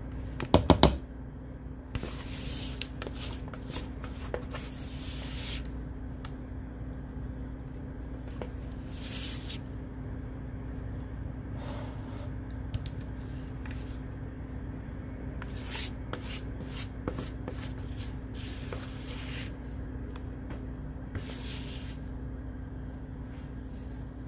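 Kitchen handling noises: a quick cluster of sharp knocks about half a second in, then scattered short rustles and scrapes over a steady low hum.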